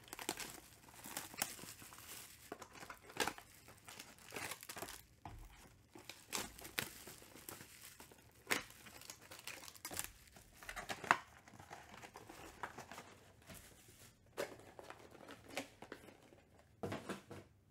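Plastic-wrapped trading card packs and cardboard hobby boxes crinkling and tearing as they are opened by hand, in irregular sharp crackles.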